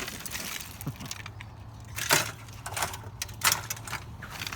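Scrap metal and wire being handled and sorted into piles: scattered clinks, rattles and knocks, the sharpest about two seconds in.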